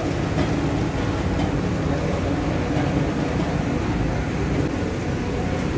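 Steady low engine rumble on a roll-on/roll-off ferry's steel vehicle deck, with a faint constant hum.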